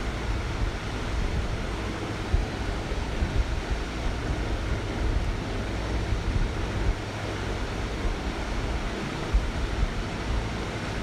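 Grated raw potato tikkis sizzling steadily in hot mustard oil in a pan, over a low rumble.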